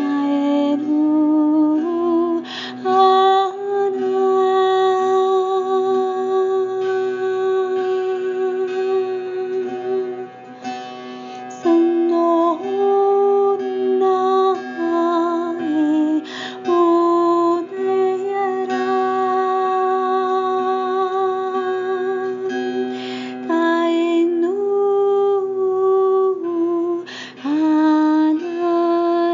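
A woman's wordless voice holding long sung tones, stepping and gliding from note to note with a slight waver, over the steady ringing drone of a plucked table zither.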